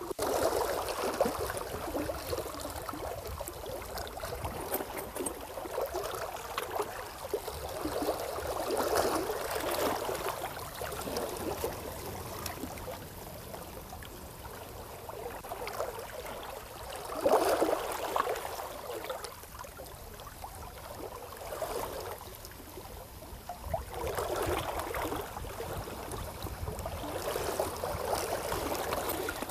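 Seawater lapping and washing against shore rocks, swelling and fading in slow surges every several seconds.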